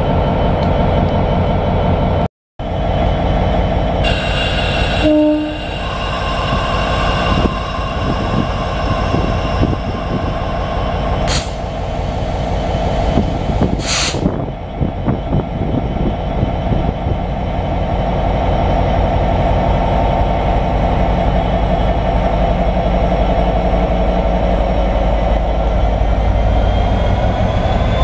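Diesel locomotive engine running steadily, with the sound cutting out for a moment near the start. Its pitch rises gently over the last few seconds.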